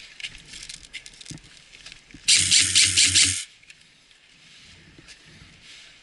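An airsoft electric gun firing one full-auto burst of about a second, a rapid even rattle of shots, after light scuffing and clicks.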